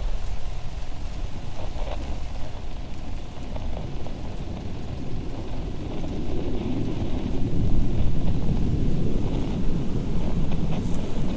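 Deep, noisy rumble that swells louder after about six seconds, with a faint steady hum above it.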